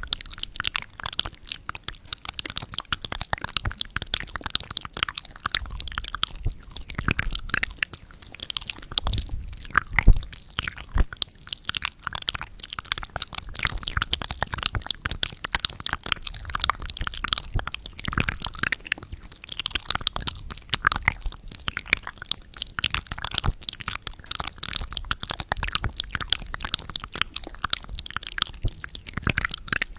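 Close-miked mouth sounds of someone chewing and crunching a hard lipstick candy: a dense, irregular run of crunches and wet clicks.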